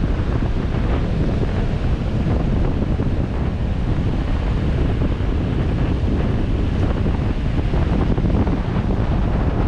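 Steady wind rumble buffeting the microphone of a 4x4 driving along a sand beach, with breaking surf mixed in underneath.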